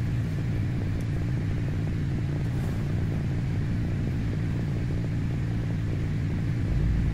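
Steady low background hum with a faint hiss, swelling slightly in the deepest register near the end.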